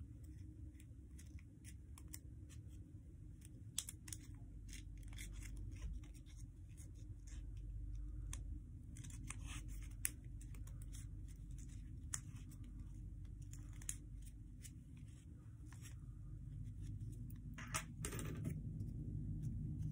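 Paper being curled and creased by hand close to the microphone: irregular crinkling and rustling with many quick sharp ticks, and a longer, louder rustle near the end.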